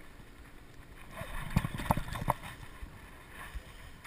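Handling noise from cranking a Shimano Stella spinning reel: a few soft knocks and clicks around two seconds in, over a steady wash of wind and water against the boat.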